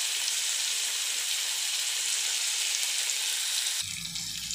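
Oil sizzling steadily in a nonstick frying pan as chopped onion, tomato and green chillies fry. Near the end the sizzle cuts abruptly to a quieter crackle over a low hum.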